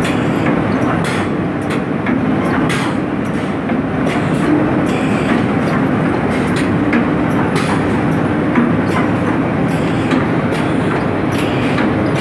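Cement bag-packing machinery running: a loud, steady mechanical din with a low hum and frequent, irregular sharp clacks and knocks.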